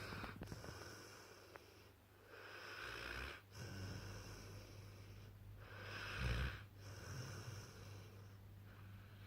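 A sleeping St Bernard–mastiff cross puppy snoring: slow, wheezy breaths a second or two long, with a louder low snort about six seconds in.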